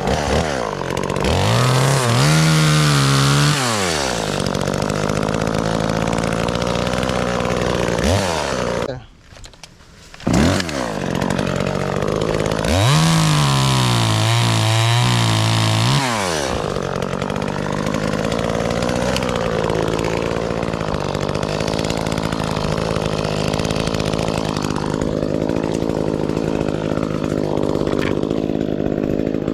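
Chainsaw engine revved up to full throttle and back down several times, dropping away briefly about nine seconds in and coming back suddenly. It then settles into a steady idle for the second half.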